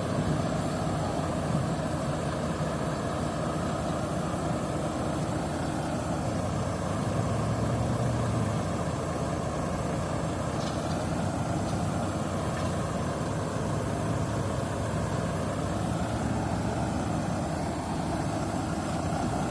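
Logging truck's engine running steadily.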